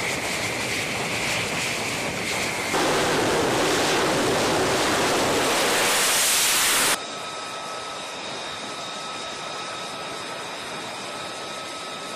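F-35C fighter's jet engine running at high power with a whine, then about three seconds in going up to a louder, fuller roar for a catapult launch off a carrier deck. Near seven seconds the roar cuts off abruptly to a quieter, steady jet whine of an aircraft on deck.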